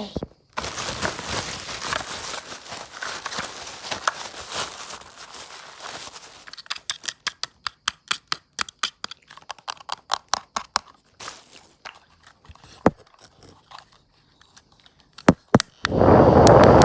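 ASMR-style handling of a new fan's packaging: crinkling and tearing of wrapping, then a run of quick tapping clicks, several a second, and a few scattered clicks. About a second before the end, a loud rushing noise starts.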